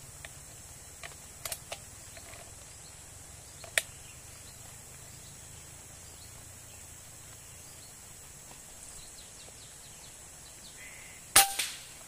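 A 4.5 mm PCP air rifle fires a single shot near the end, a sharp crack with a short ringing tail. Earlier, a few lighter clicks and one sharper click.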